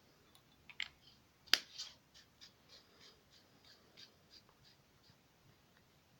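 An 18650 battery being loaded into a small zoomable flashlight: a few light clicks, one sharp knock about a second and a half in, then a run of soft, regular ticks, about three a second, as the tail cap is screwed on.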